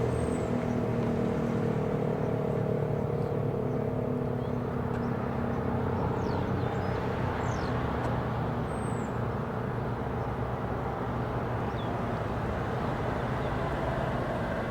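ACA P-15 single-tone siren winding down at the end of its test run, its steady tone fading away over the first few seconds over a low rumble. A few short bird chirps sound above it.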